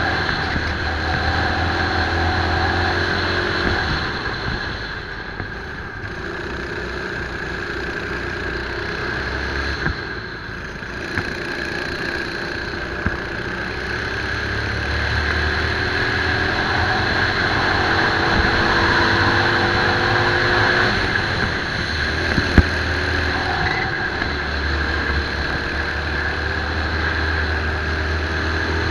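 Racing kart engine heard from onboard at full race pace, the revs dropping off into corners about five and ten seconds in and climbing again along the straights.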